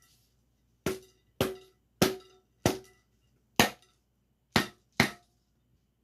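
A container holding collected insects knocked sharply seven times at an uneven pace, each knock with a brief ring, to shake loose insects stuck inside.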